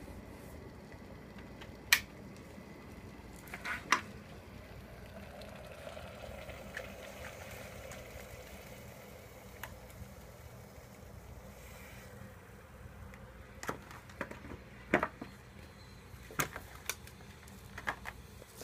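Hot water poured from an electric kettle into a Nissin UFO instant yakisoba cup, a soft splashing hiss lasting a few seconds in the middle. Before and after it come sharp clicks and taps as the cup, its peeled-back lid and the chopsticks are handled.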